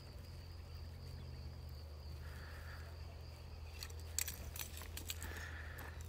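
Faint outdoor ambience: a steady thin high drone like insects, with a soft short call repeating about every three seconds. A few sharp clicks come about four seconds in.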